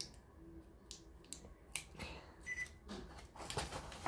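Faint scattered clicks and light rustling of something being handled at a table, with a brief high squeak about two and a half seconds in and denser rustling near the end.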